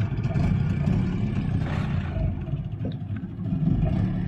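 Small outboard motor on a boat, running steadily with a low, even drone.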